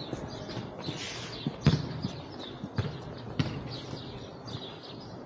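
Small birds chirping throughout, with a few scattered thuds of a ball hitting hard ground; the loudest comes a little under two seconds in.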